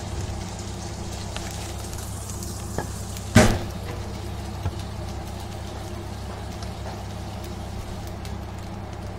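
Fried rice sizzling in a wok over a gas burner, under a steady low hum; a single sharp knock about three and a half seconds in.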